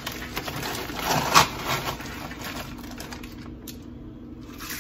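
Kitchen handling clatter: a spoon scraping and knocking as chopped green peppers are scooped with a plastic measuring cup and stirred into tomato sauce in an electric roaster. There is one louder knock about a second and a half in, over a steady low hum.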